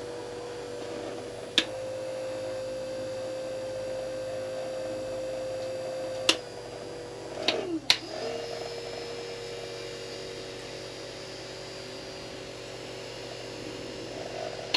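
Watersnake electric trolling motor running with its prop out of the water, a steady whine. Clicks of its speed control about 1.5 s and 6 s in shift the pitch slightly, and near 8 s two clicks make the motor slow briefly and spin back up.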